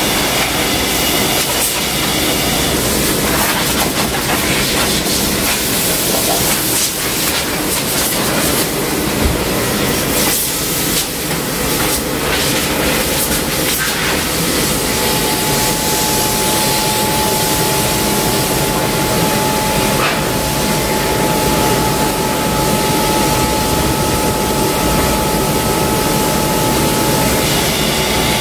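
Car-wash interior-cleaning equipment running with a loud, steady rushing of air as dirt is cleaned out of a car's interior. A steady high whine joins about halfway through and stops shortly before the end.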